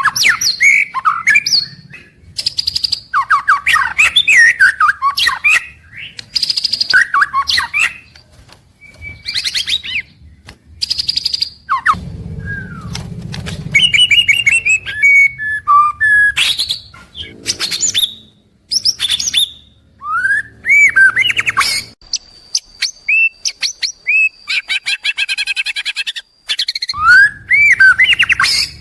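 White-rumped shama (murai batu) singing: loud, varied phrases of whistled glides, rapid trills and harsh rattles, each a second or a few long, with short pauses between them.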